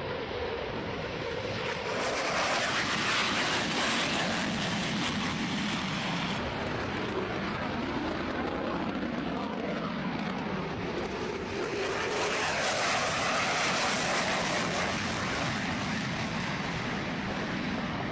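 Military fighter jet engines running, a continuous jet noise with hiss that changes at cuts about two, six and eleven seconds in. It is loudest in the middle stretches.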